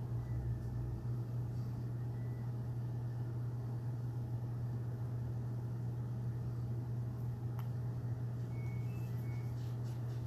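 A steady low hum, with a faint click and a few faint short high beeps near the end.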